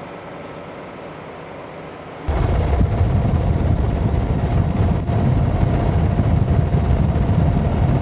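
Quiet steady outdoor noise, then about two seconds in a sudden cut to the loud, steady din of a helicopter in flight heard from inside, engine and rotor noise, with a faint high chirp repeating about three or four times a second.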